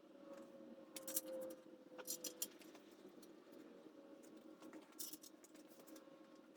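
Faint clicks and light metallic rattles of parts being handled, as an oil pan is lowered onto an engine block over guide studs and its bolts are fitted, with a faint steady hum underneath.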